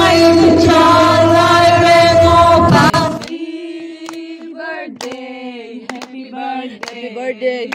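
Loud singing over musical backing that cuts off suddenly about three seconds in, followed by unaccompanied singing of long held, wavering notes as a birthday song is practised, with a few sharp clicks.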